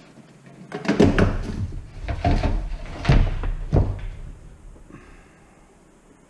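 A run of heavy knocks and thumps on a workbench, about five in three seconds, each ringing on briefly, as a metal light fixture, its cord and hand tools are handled.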